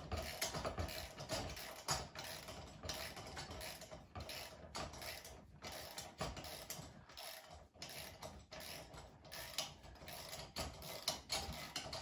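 A 7/16 inch wrench tightening a long bolt and nut on the steel frame of an Earthway garden seeder: a faint, irregular run of small metallic clicks and taps.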